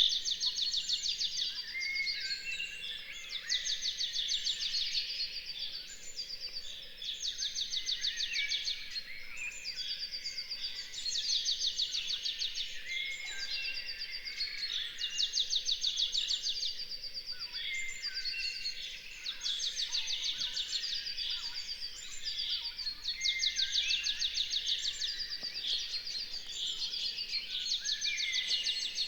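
Dawn chorus: many songbirds singing at once, their overlapping songs full of rapid trilled phrases that follow one another every second or two.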